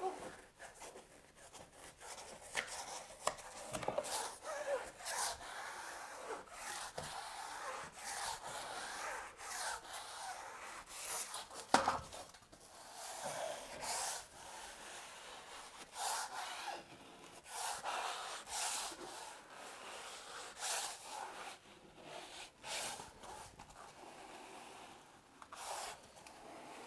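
Drywall taping knife scraping and rubbing across a sheet waterproofing membrane on a foam shower pan in repeated strokes, pressing out trapped air bubbles. A single sharp knock a little before the midpoint is the loudest sound.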